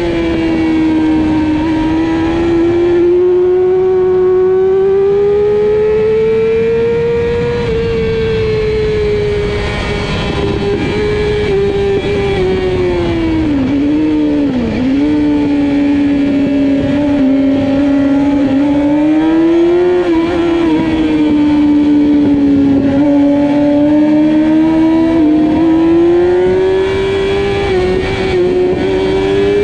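Onboard sound of a racing sport bike's engine held high in the revs at speed, its pitch sagging and climbing slowly as the rider works through the corners. About fourteen seconds in the note dips sharply and picks up again.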